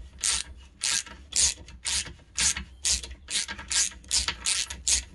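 Ratchet handle clicking in short repeated strokes, about two a second, as a thread tap is worked in and out of a dirty 12 x 1.5 mm bolt thread to clean it.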